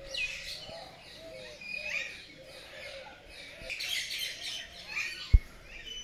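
Many birds chirping in quick, overlapping short calls, with lower calls mixed in. A single low thump about five seconds in.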